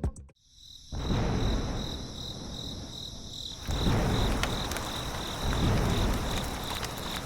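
High, even insect chirping, cricket-like, that becomes a regular pulse about halfway in, over a low rumbling noise that rises and falls.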